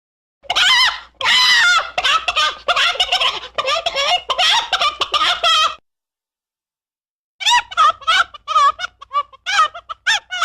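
Chicken clucking and cackling in rapid runs of calls: a long run of about five seconds, a short pause, then quicker, choppier clucks near the end.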